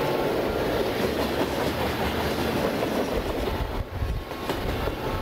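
Freight train's boxcars rolling past close by: a steady noise of steel wheels on the rails, briefly quieter about four seconds in.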